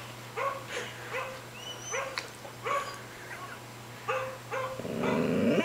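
Dog barking: a quick series of short barks, about two a second, with a rising rustling swell near the end.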